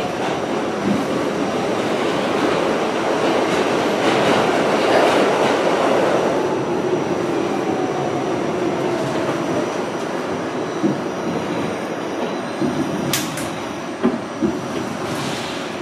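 R68 subway car running, heard from inside the car: a steady rumble of wheels and motors on the track that swells a few seconds in. A faint whine falls in pitch in the middle, and short clicks of the wheels over rail joints come in the second half, with one sharp click near the end.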